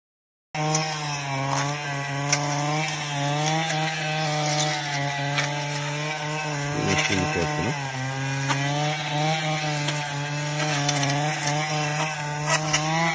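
Small engine of a handheld power tool used for trail clearing, running steadily at high speed with its pitch wavering slightly, and scattered sharp ticks. It starts abruptly about half a second in.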